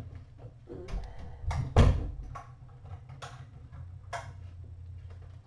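A handful of irregular clicks and knocks over a steady low hum, the loudest knock about two seconds in.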